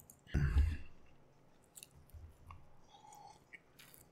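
A short noisy rustle about half a second in, then faint, scattered clicks of a computer mouse.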